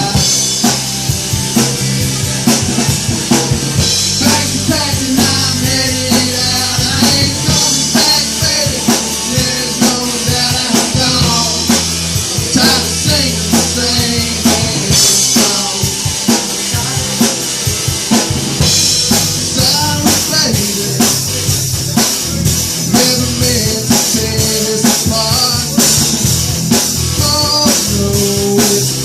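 Live rock band playing an instrumental break with a steady drum-kit beat of kick, snare and rimshots under sustained pitched instrument lines.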